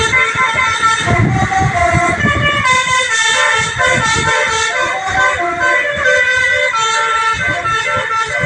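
A tour bus's basuri telolet horn playing a melody: several horn tones together, stepping from note to note every fraction of a second, over a low rumble.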